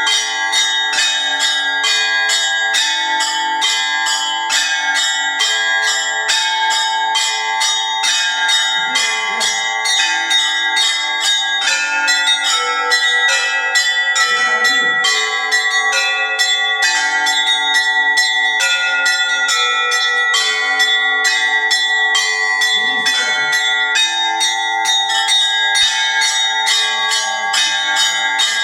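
A set of bells rung together in a festive Russian-style peal. Small bells are struck rapidly in an even rhythm, about three strikes a second, over the sustained ringing of larger bells.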